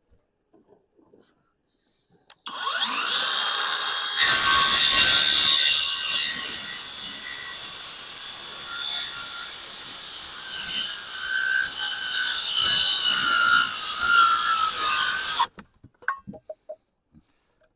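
Electric power saw spinning up with a rising whine about two seconds in, then cutting through a 2x10 board for about eleven seconds, loudest as the blade first bites, and stopping suddenly near the end.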